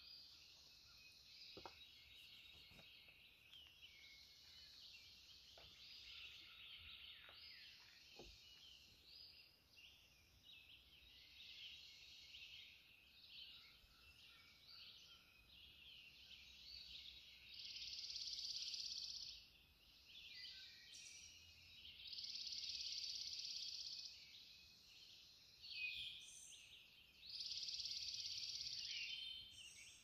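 Faint dawn chorus of many songbirds chirping and singing together. A louder, steady two-second trill from one bird stands out three times in the second half, about every four to five seconds.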